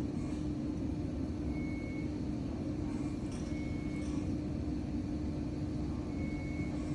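Steady hum of bedside hospital equipment with a constant low tone, and three short high beeps a couple of seconds apart, typical of a patient monitor.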